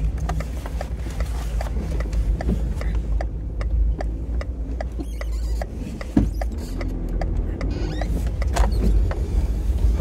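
Car engine and road noise inside the cabin, with a turn indicator ticking steadily, about three ticks a second. A single thump about six seconds in.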